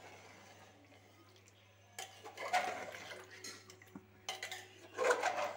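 Spatula stirring thick mutton curry in a pressure cooker: wet, liquid stirring noise with scrapes and clinks against the pot, in two bouts after a quiet first two seconds.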